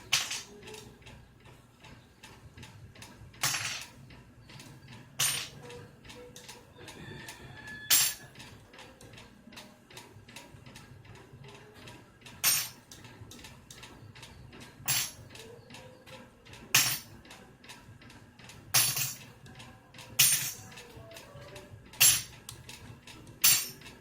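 Sharp metal clinks of battery-pack hardware, nuts and bus bars, being handled and set down one at a time: about eleven separate clinks a second or a few seconds apart.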